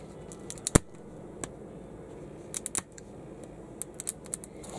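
A fingernail picking and peeling at the glossy plastic outer wrapper of a toy capsule, giving scattered sharp clicks and crackles. The sharpest click comes just under a second in.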